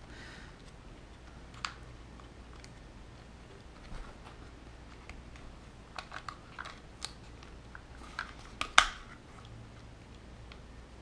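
Small plastic clicks and taps as fingers work a plastic radio-gear cover and its wires into place on an RC truck's chassis, with a sharper snap about three-quarters of the way through.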